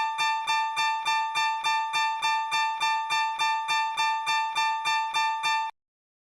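Japanese railroad crossing warning bell ringing its repeated 'kan-kan' ding, nearly four even strikes a second. It cuts off abruptly near the end.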